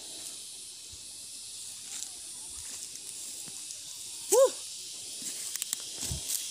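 Steady high-pitched hiss of insects in a field, with one short rising-and-falling vocal sound about four seconds in. Near the end come a few faint knocks and a low thud as a grub hoe digs into the soil.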